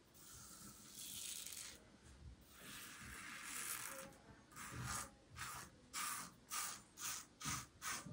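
Double-edge safety razor (Razorock Superslant L2++ with a Triton blade) scraping through lathered stubble: a couple of longer strokes, then quick short strokes about two a second in the second half.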